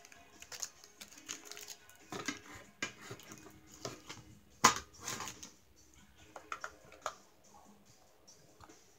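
Handling noise from the parts of a mini rice cooker: rustling and light clatter as the plastic-wrapped inner pot is handled, with one sharp knock a little past the middle as it is set down, then softer clicks from a plastic measuring cup.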